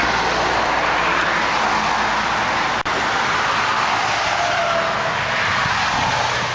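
1990 Cadillac Brougham's V8 idling steadily just after starting, under a steady wash of wind noise and highway traffic.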